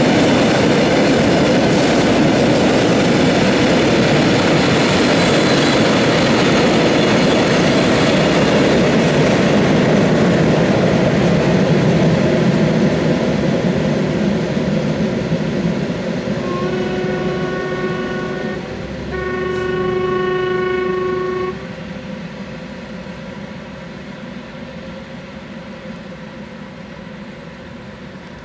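Freight train of hopper wagons rolling past close by, a loud steady rumble of wheels on rails that gradually fades as it moves away. Past the middle, a train horn sounds twice, two long blasts of about two seconds each, one right after the other.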